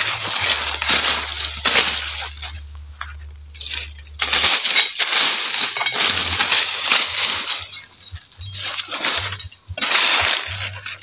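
Metal-bladed digging tool scraping and chopping into soil and dry leaf litter while termite mushrooms are dug up. The strokes come as a series of short crunching scrapes, with rustling of dry leaves and two quieter pauses.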